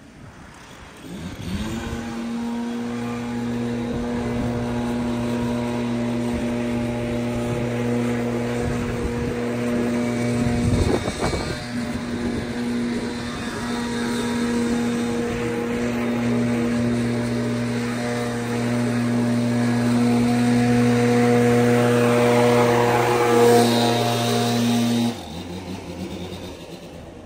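Gas backpack leaf blower revving up about two seconds in and running steadily at high throttle. It is loudest as it passes close near the end, then drops back to idle a couple of seconds before the end.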